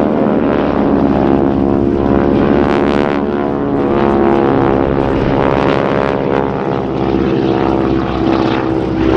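Radial-engined propeller warbird trainers flying past: a steady, loud engine drone made of many tones, its pitch sliding down a few times as the aircraft go by.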